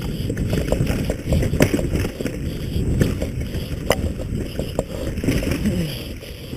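Mountain bike rattling and knocking over rough ground at speed, with wind buffeting the microphone and several sharp clacks from the bike.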